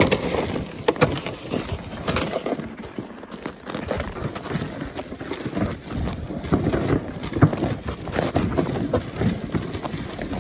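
Footsteps crunching and scuffing across rough frozen lake ice, an uneven walking rhythm of short impacts.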